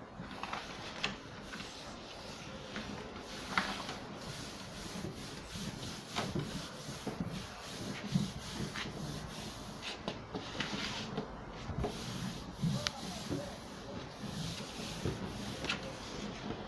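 Wallpaper being smoothed by hand onto the back panel of a bookcase: paper rubbing and rustling against the board, with scattered small crackles.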